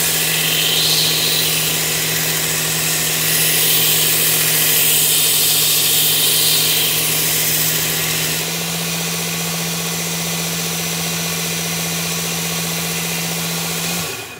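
Work Sharp Ken Onion blade grinding attachment running with a steady motor hum while its coarse abrasive belt grinds a knife edge, a loud hiss for the first eight seconds or so, then lighter. The grinding raises a burr on the edge, and the motor winds down and stops near the end.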